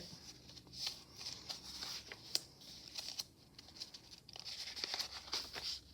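Soft rustling and light taps of paper and card being handled as the pages of a handmade paper journal are turned.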